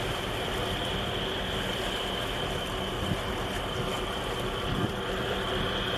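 Steady low drone of ship engines across the harbour water, with a steady hiss and a couple of brief low wind buffets on the microphone.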